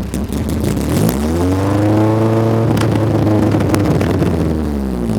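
Honda B20 four-cylinder engine in a Civic running straight off the header with no exhaust, loud; it is revved up about a second in, held, and drops back near the end.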